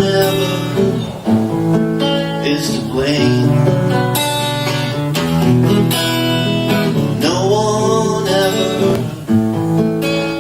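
Acoustic guitar strummed and played live, with a voice singing long drawn-out notes over it.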